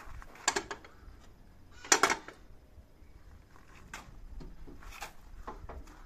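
A few knocks and clunks of parts being handled and set in place: a sharp one about half a second in, the loudest about two seconds in, then lighter taps.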